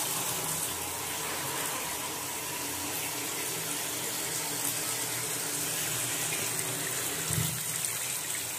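Kitchen tap water running steadily and splashing onto raw chicken pieces in a steel bowl in a stainless steel sink: the chicken is being washed.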